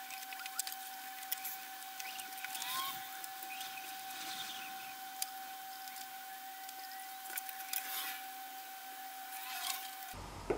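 Faint handling of laptop parts: scattered light clicks, taps and scrapes of plastic and metal pieces, with a couple of short squeaks, over a steady faint tone.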